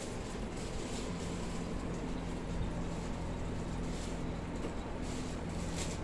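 Evergo 52-inch ceiling fan running: a steady motor hum under a constant rush of air, with a short click near the end.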